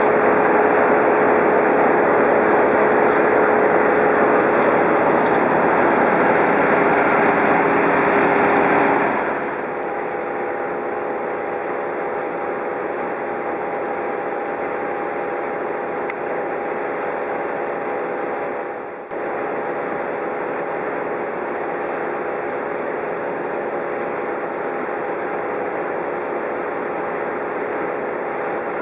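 Engine running steadily, easing down to a lower, quieter level about nine seconds in and carrying on at that level.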